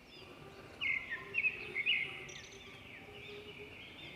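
Birds chirping in the background, a run of short high chirps with a louder burst about a second in.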